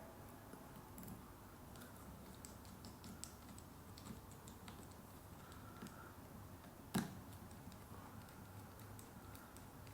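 Faint, irregular small metal clicks and ticks of a screwdriver turning the screws of a lens mount, with one sharper click about seven seconds in.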